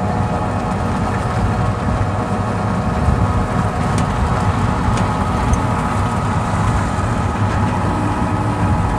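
Battery e-rickshaw (toto) in motion: a steady electric-motor whine over a rumble of road and wind noise.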